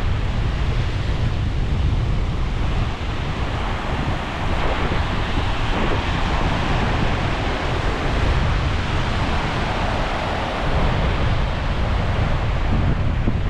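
Sea surf washing steadily against the shore, with wind buffeting the microphone as a low rumble.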